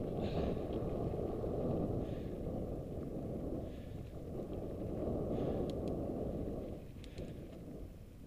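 Wind buffeting the microphone of a mountain-bike-mounted camera on a dirt trail, swelling and easing every few seconds, with a few sharp clicks in the later part of the ride.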